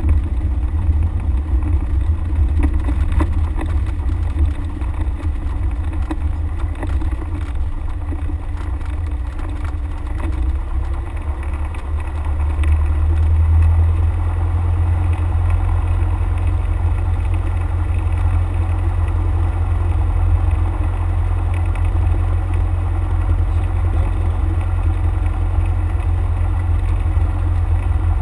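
Cessna 172's piston engine and propeller running at low taxi power, heard from inside the cockpit as a steady low drone. It grows somewhat louder about halfway through and then holds steady.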